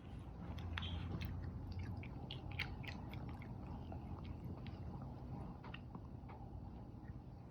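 A cat chewing and crunching a small dry treat, a quick irregular run of small crunches.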